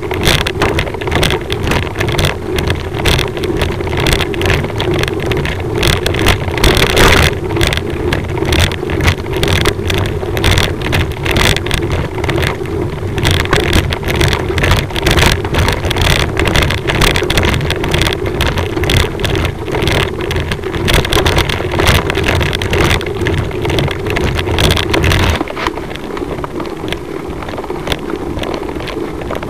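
Motor vehicle engine running steadily at low speed, with wind buffeting the microphone; the deep rumble eases off about 25 seconds in.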